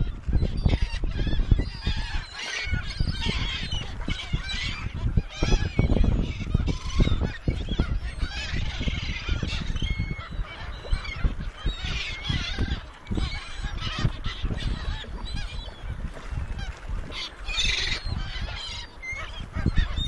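A flock of gulls calling over one another, many short cries overlapping throughout, over a steady low rumble.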